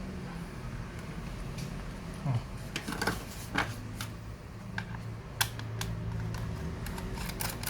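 Scattered small clicks and taps of laptop parts and screws being handled during disassembly, over a steady low hum.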